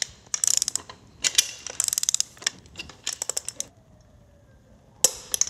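Torque wrench ratchet clicking in quick runs as it winds down a large nut on a transfer case's drive shaft flange. A pause follows, then a single sharp click near the end.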